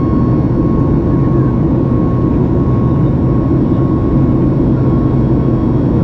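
Boeing 737 MAX 8's CFM LEAP-1B jet engines running steadily in flight, heard inside the cabin as a constant low rumble with a steady high tone above it.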